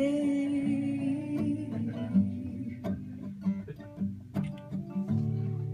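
Acoustic guitar playing an instrumental passage of a slow lullaby, notes plucked and left to ring, with a strong chord struck at the start.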